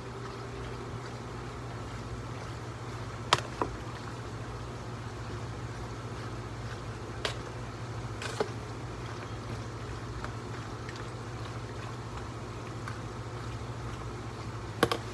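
Steady low hum in a kitchen, with a handful of sharp clicks and knocks: two close together about three seconds in, two more midway, and a double click at the very end.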